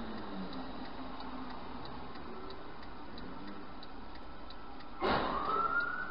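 Car turn-signal ticking steadily, about three ticks a second, over a faint low engine hum. About five seconds in, a sudden loud hit sets off a long rising tone.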